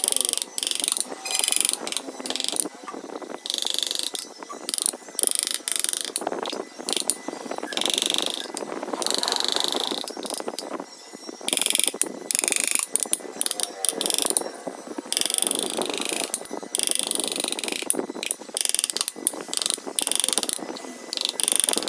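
Wood being worked with carving tools: repeated rasping, scraping strokes, each lasting from a fraction of a second to a couple of seconds, separated by short gaps.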